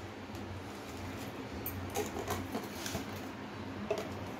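Faint clicks and scrapes of a small plastic jar being handled and opened, and a metal spoon going into the powder inside, over a low steady hum.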